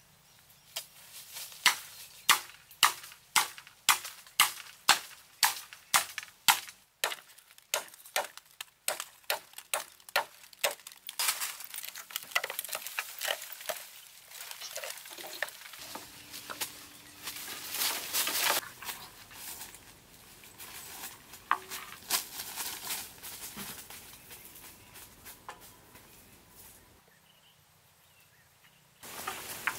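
Machete chopping into green bamboo, sharp blows at about two to three a second for roughly ten seconds. It is followed by a stretch of crackling and rustling as the cut stems are worked, then only scattered small sounds.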